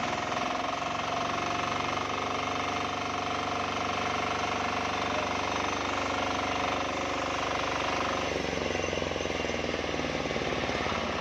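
Matsumoto diesel engine driving a homemade sawmill, running steadily with an even, knocking note. About eight seconds in, its tone shifts as the upper harmonics fade and the lower ones strengthen.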